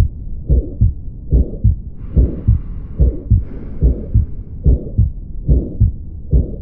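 Heart sounds heard through a stethoscope: paired lub-dub beats at about seventy a minute, with a soft breath sound mixed in about two seconds in.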